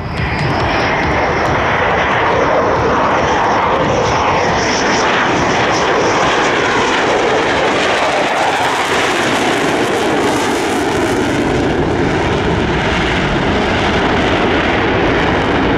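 Dassault Rafale fighter jet's twin turbofans running loud during a low pass, a steady jet noise with a high whine in the first half.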